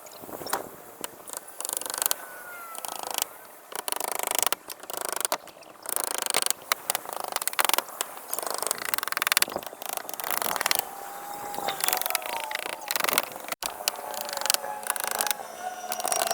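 Roof repair work: irregular scraping, clattering and knocking of tools and roofing material, with a few brief squeaky tones.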